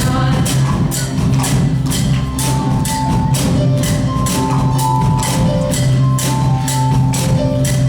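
Live band music: a steady quick percussion beat with tambourine-like strikes, held melody notes over it and a strong bass line.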